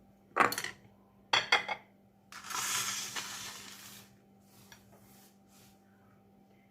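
Kitchen glassware and utensils clinking: one sharp clink, a quick double clink about a second later, then a high rustling hiss lasting about a second and a half, during the filling of jars with salted lemons.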